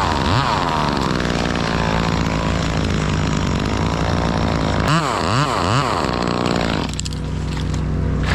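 Chainsaw engine revving up and down in quick throttle blips, running steadily in between, then settling to a lower, steadier note about seven seconds in.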